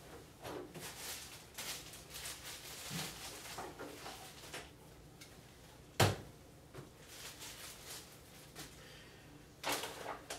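Handling noises on a wooden workbench: plastic packaging rustling through the first few seconds, then one sharp knock about six seconds in as an RC radio transmitter is set down on the bench. Near the end a plastic bubble bag rustles as it is put down on the bench.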